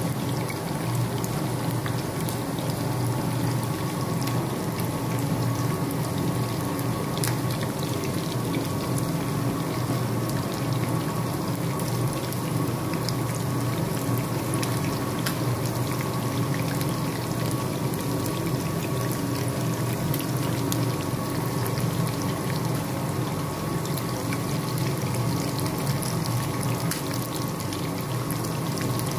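Chicken wings deep-frying in hot oil in a skillet: a steady sizzle with many fine crackles and pops.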